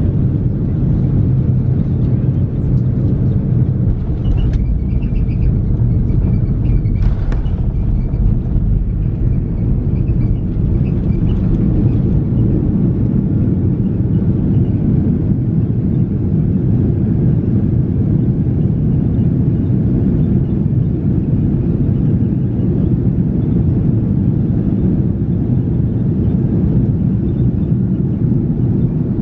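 Airliner cabin noise heard from a window seat over the wing: the jet engines and the rolling airframe give a steady, even low rumble as the plane moves along the ground.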